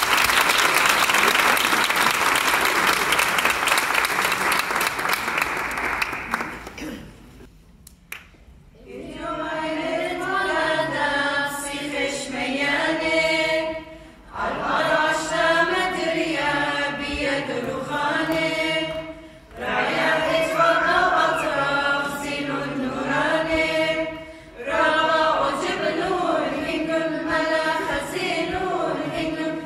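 Audience applause that fades out about six seconds in. After a short pause, a small mixed choir starts an unaccompanied hymn of the Assyrian Church of the East, sung in phrases with brief breaths between them.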